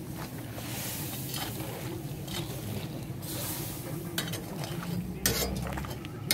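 A kazan of crayfish at the boil: steady bubbling and hissing of the water. A metal skimmer stirs the pot and knocks against it a few times, loudest a little after five seconds in.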